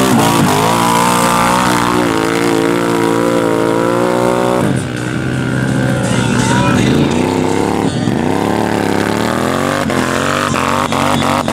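ATV engine revving hard as the four-wheeler spins its tyres through deep mud; the revs drop sharply about five seconds in and again about eight seconds in, then climb back up each time.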